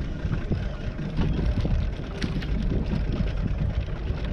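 Steady low rumble of a fishing boat at sea, with a few small knocks scattered through it.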